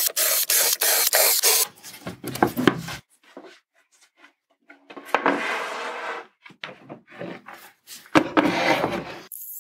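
Plywood panels being handled on a wooden workbench: several spells of rubbing and scraping with knocks as a board is lifted, turned and slid across the bench top.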